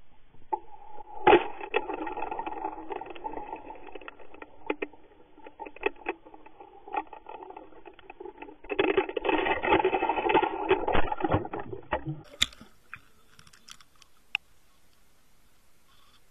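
Muffled rubbing and rattling handling noise, with many clicks and knocks, from an underwater camera in its housing as it swings on the fishing line. The noise is loudest around nine to eleven seconds in and stops about twelve seconds in, leaving only faint scattered clicks.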